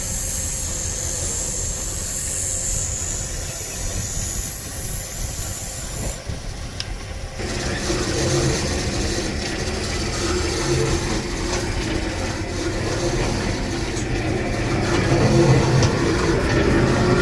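Machinery running steadily. A high hiss in the first six seconds gives way to a fuller noise with a steady hum from about seven seconds in, growing louder near the end.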